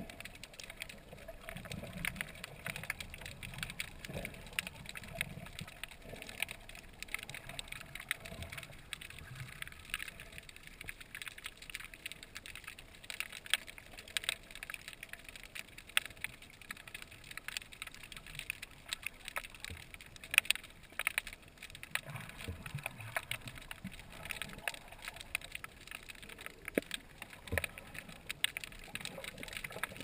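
Sea water heard underwater: a constant, irregular crackle of many small clicks over low, muffled surges of moving water.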